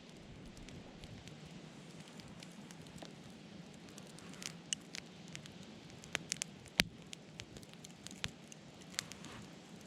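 Wood fire burning with a steady low hiss and irregular sharp crackles and pops, more of them in the second half and the loudest about seven seconds in.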